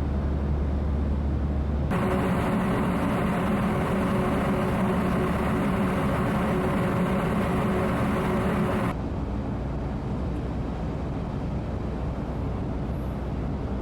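Steady low drone of a car ferry's engines and machinery as the ship gets under way from port. It jumps louder and brighter about two seconds in and drops back abruptly about nine seconds in.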